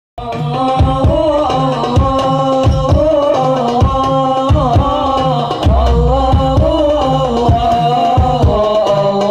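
Hadroh ensemble: hand-struck frame drums and a bass drum keeping a steady rhythm under a male singer's melody, amplified through a PA sound system.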